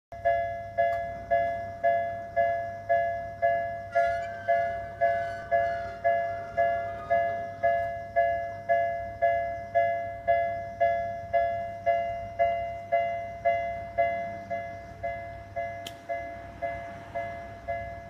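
Japanese railroad crossing warning alarm ringing its 'kan-kan' tone, about two strokes a second, each stroke dying away before the next, while the barrier is down.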